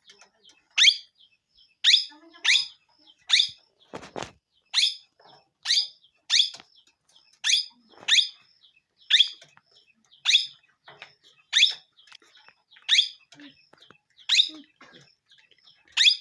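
A parrot giving a long series of short, sharp, high-pitched calls, each falling quickly in pitch, at about one every three-quarters of a second. A brief thump comes about four seconds in.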